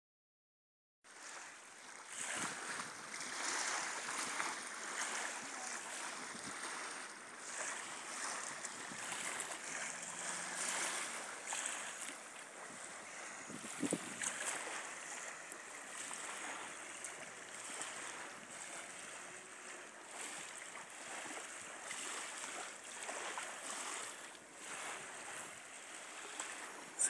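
Wind and small waves lapping at a river bank make a steady rushing hiss that swells and eases. There is a single knock near the middle.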